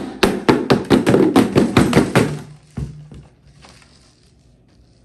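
A quick, even run of sharp taps or knocks, about five a second, lasting a bit over two seconds and followed by a single knock.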